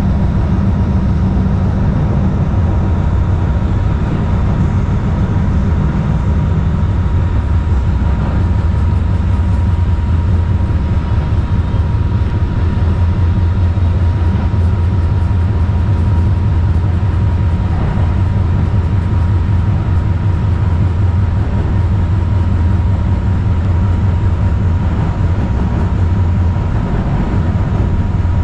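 2010 Kinki Sharyo electric light rail car of DART's Orange Line running along the track: a steady low rumble with a thin, constant whine above it.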